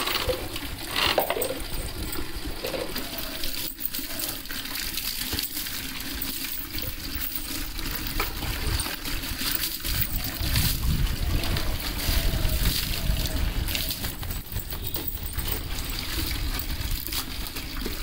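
Tap water running and splashing into a plastic tub, with the metal links of a dog's leash chain clinking now and then.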